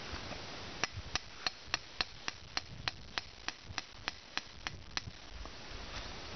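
Claw hammer striking a thin steel electrode rod to drive it into the soil: about fifteen quick, evenly spaced metal taps, roughly three a second, starting about a second in and stopping about five seconds in. The electrode is being driven about 5 centimetres deep for a Wenner four-electrode soil resistivity test.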